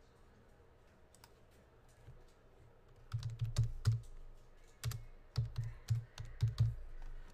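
Typing on a computer keyboard: a few light keystrokes, then from about three seconds in several quick runs of firm keystrokes, each with a dull thump as it lands.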